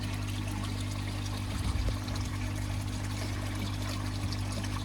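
Water pouring and trickling steadily into a garden koi pond, under a low steady hum.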